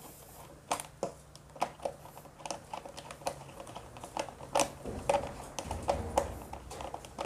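Light, irregular clicks and taps, two or three a second, of hands handling an electrical wire and plastic fittings at a terminal on a wiring board.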